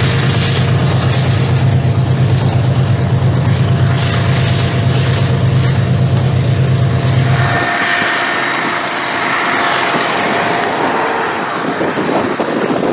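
Diesel-electric freight locomotives running close by with a heavy, steady low engine rumble. About eight seconds in the sound changes abruptly to a thinner, more distant train noise without the deep rumble.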